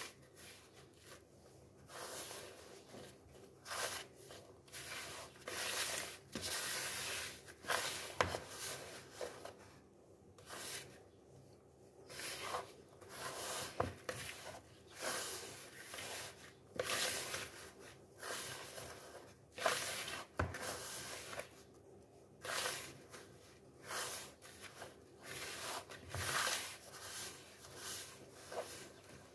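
A hand mixing flour and egg in a plastic bowl: fingers rubbing and squeezing the mixture in irregular strokes every second or two, with a few sharp clicks against the bowl.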